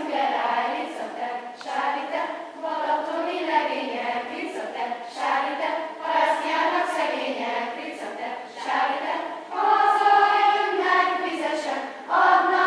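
Children's choir singing together in unison phrases with short breaths between them, swelling louder on held notes about ten seconds in.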